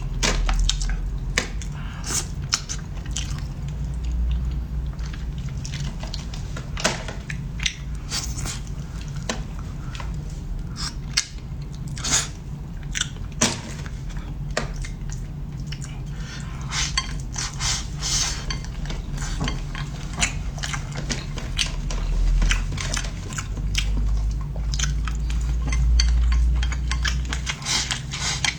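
Eating utensils clicking and clinking against bowls and plates at irregular intervals, with chewing, over a steady low hum.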